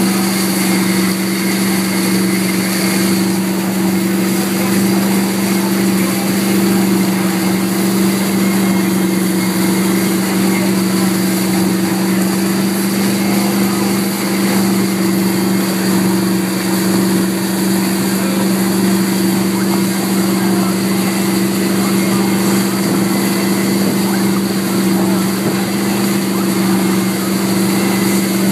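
Tow boat's engine running at a steady speed with a constant low drone, over the continuous rush of the churning boat wake.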